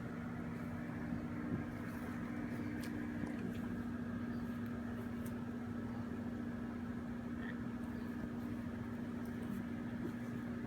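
Honeybees from an opened package buzzing as a steady, even hum, with a few faint clicks.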